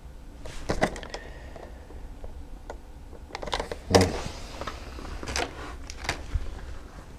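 Small parts and packaging being handled by hand, as in a search through a brake rebuild kit: scattered clicks and rustles over a low hum, the sharpest click about four seconds in.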